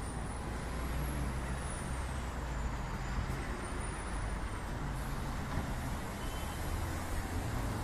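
City street traffic: buses, a truck and cars running along a wide avenue, a steady rumble of engines and tyres with a low engine hum. A faint high whine rises and falls twice during the first few seconds.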